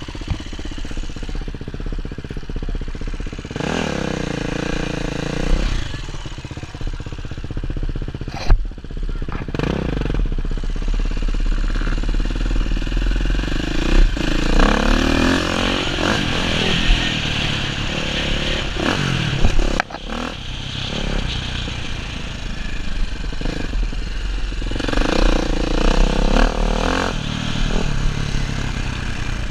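Dirt bike engine ridden on a dirt track, the revs rising and falling several times as the rider opens and closes the throttle, with wind on the microphone and rattling from the bike.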